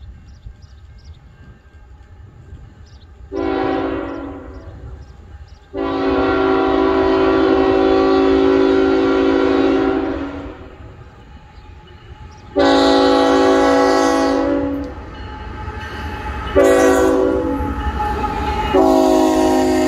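Diesel locomotive's multi-note air horn blowing a series of blasts over a low rumble of the approaching train. There is a shorter opening blast, then a long blast, a second long one, a short one, and a final long one held as the locomotive passes close by. This is the long-long-short-long grade-crossing signal.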